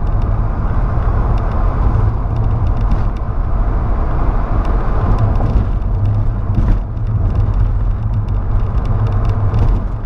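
Volkswagen Saveiro pickup driving at road speed, heard from inside the cab: a steady rumble of engine, tyres and wind.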